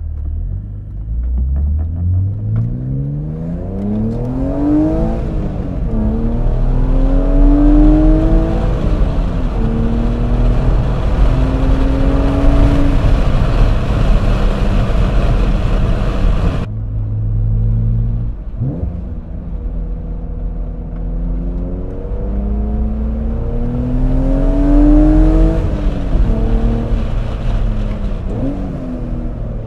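BMW Z3 M Coupe's S52 straight-six, running through Eisenmann Race axle-back mufflers and heard from inside the cabin, accelerating up through the gears. Its pitch climbs, drops at each upshift, then climbs again. There are two such pulls, with an abrupt break between them about 17 seconds in.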